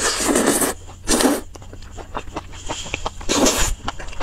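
Close-miked eating of sauce-coated food: wet chewing and clicking mouth sounds, with three louder noisy bursts of biting or slurping at the start, about a second in, and near the end.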